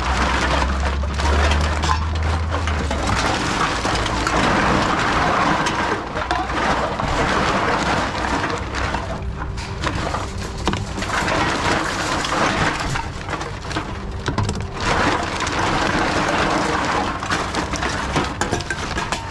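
Aluminium cans and plastic bottles rattling and a plastic bag rustling as containers are fed into a TOMRA reverse vending machine. A low hum runs through the first few seconds.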